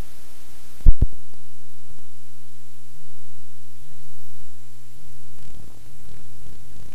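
Steady electrical mains hum in the audio line, a low buzz with a strong tone and several higher ones above it. About a second in come two loud thumps close together.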